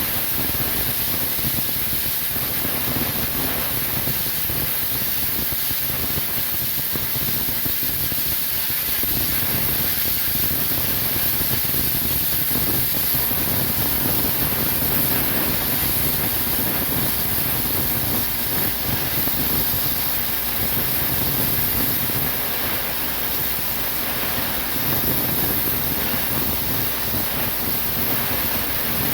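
Plasma cutter cutting steel: a steady, unbroken hiss of compressed air and arc through the torch.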